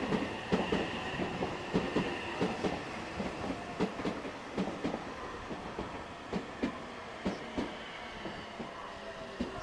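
Meitetsu electric train's wheels clicking over rail joints, the clicks spacing out as the train slows. A faint high whine runs under the clicks.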